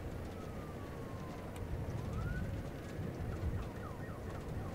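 Faint emergency-vehicle siren: a slow wail that sinks and rises again about two seconds in, then switches to a fast yelp of about three sweeps a second, over a low rumble.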